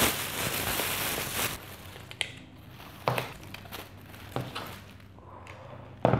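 Thin plastic carrier bag rustling and crinkling as it is pulled open, then plastic takeaway tubs knocking down onto a table about three times.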